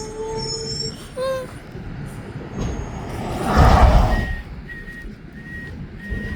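Mack McNeilus front-loader garbage truck: a short squeal in the first second, a loud burst of air and engine rumble a little past halfway, then its reversing alarm beeping evenly, about every two-thirds of a second.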